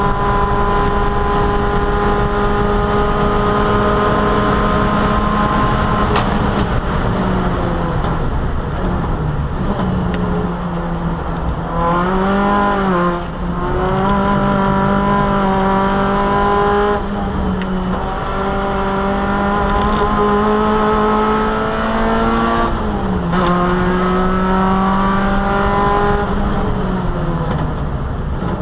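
Opel Kadett E race car's four-cylinder engine running hard, heard from inside the stripped cabin. It holds a high, steady pitch for long stretches, and the revs fall and climb again several times, most clearly about seven and twenty-three seconds in.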